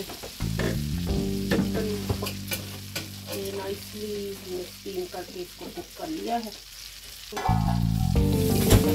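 Butter sizzling on a hot flat tawa griddle, with sharp clinks of a metal slotted spoon as steamed chicken is lifted from the steamer pot. About seven and a half seconds in the sizzling grows suddenly louder as the chicken is laid on the tawa.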